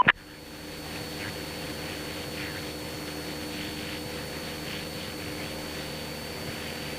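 Steady drone of a Cessna 172SP's four-cylinder piston engine and propeller in cruise, heard inside the cabin, a hum of several even tones that settles within about a second.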